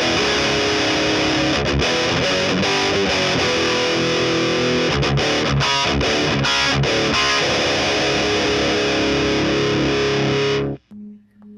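Heavily distorted electric guitar riff played through a 2x12 cabinet loaded with 25-watt Celestion Greenback speakers. The playing stops abruptly near the end, leaving a faint low tone.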